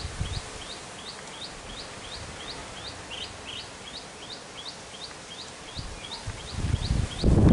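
A bird repeating a short rising chirp about three times a second, evenly, over outdoor background noise. Near the end a louder burst of low rumbling comes in.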